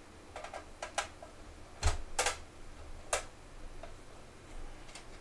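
Scattered sharp clicks and knocks from a small network appliance's case being handled and opened up by hand, about eight in all, the loudest a knock with a low thump about two seconds in.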